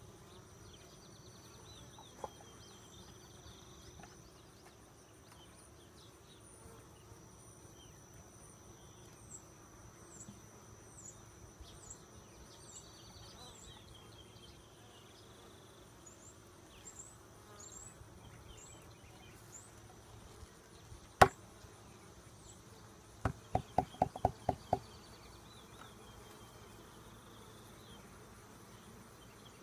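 Honey bees buzzing at an open hive. About two-thirds of the way through there is one sharp wooden knock, then a quick run of about eight knocks as the hive boxes and lid are set back in place.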